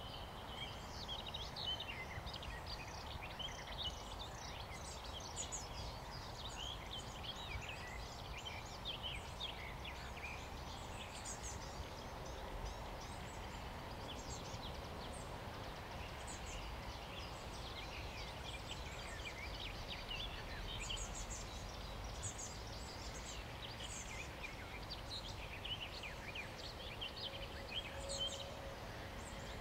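Many small songbirds chirping and singing in a continuous chorus of short, high calls, over a steady low rumble of wind on the microphone.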